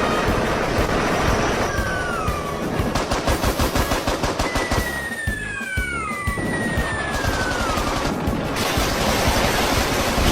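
Battle sound effects: rapid machine-gun fire and three long, falling whistles like incoming shells, over music.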